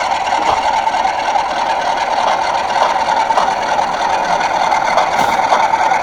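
Model ND3-2 diesel locomotive's DCC sound decoder playing a diesel engine running steadily, heard through the model's small speaker: thin, with little bass.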